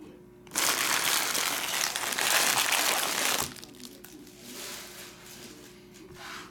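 Foil trading-card pack wrappers crinkling loudly for about three seconds, starting and stopping abruptly, followed by faint rustling.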